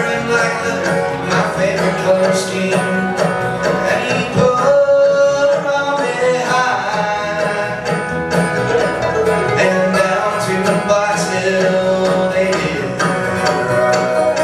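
Acoustic string band of fiddle, acoustic guitar, mandolin and bass playing a bluegrass-style song, with a man singing lead.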